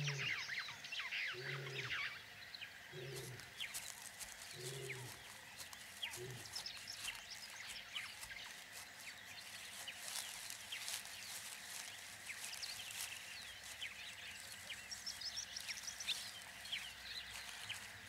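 Faint lion grunts: about five short, low calls roughly a second and a half apart, the tail of a roaring bout, fading out about six seconds in. Birds chirp and tick throughout.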